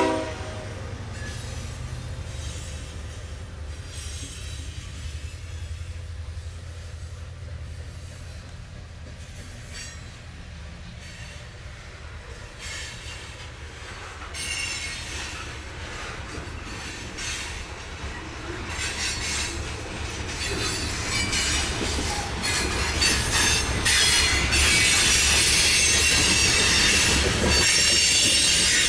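Freight train of covered hopper cars rolling past: a steady low rumble of wheels on rail, with high wheel squeal building in the last third and getting louder.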